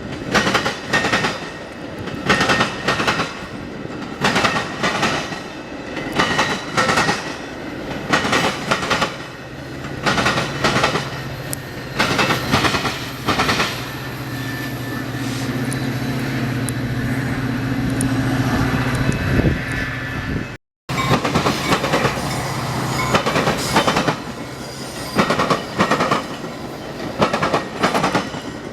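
Train passing, its wheels clacking over the rail joints in a steady rhythm. Past the middle, a steady low drone comes in over the clacking for several seconds. The sound then cuts out for a moment and the clacking resumes.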